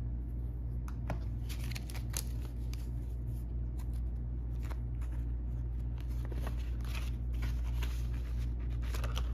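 Paper banknotes rustling and crinkling in irregular short bursts as they are handled and slid into a paper cash envelope, over a steady low hum.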